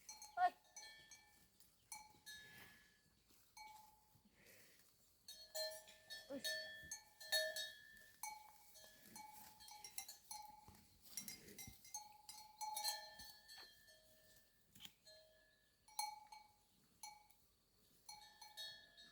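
Small metal bells clanking irregularly, each strike ringing briefly at the same few pitches.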